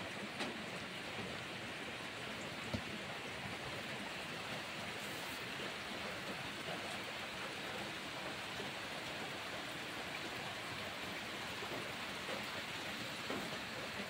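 Steady rain falling, an even hiss of drops throughout, with one sharp tick a little under three seconds in.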